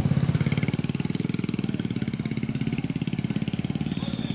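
Bus engine running steadily with an even, rapid throb, heard from inside the bus.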